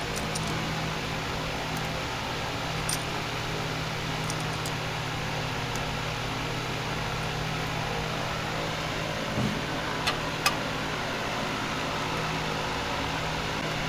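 Steady hum and airy whir of a running fan, with a few short light clicks.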